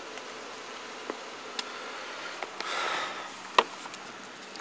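Quiet, steady background hiss picked up by a body-worn camera microphone, with a few light clicks, a soft rustle about three seconds in, and a sharper click shortly after.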